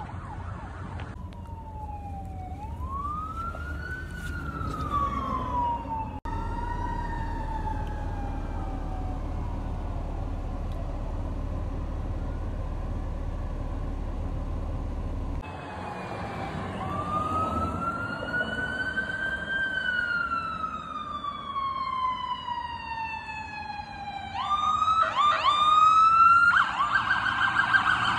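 Fire truck sirens wailing in slow rising and falling sweeps, heard over several passes. Near the end a siren switches to quick, repeated rising sweeps and then a louder, steady high tone.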